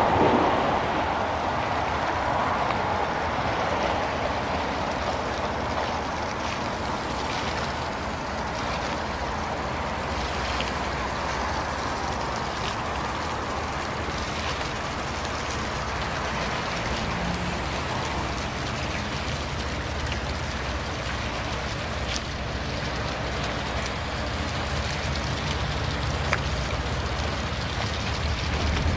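Small motor boat's engine running steadily as it approaches, a low hum over a hiss of water and air. The hum grows louder near the end as the boat comes close.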